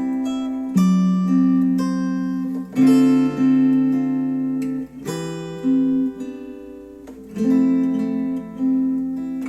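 Acoustic guitar music: chords strummed and left to ring, a new strum about every two seconds, with no singing. It is played back through Focal Chora 806 bookshelf speakers.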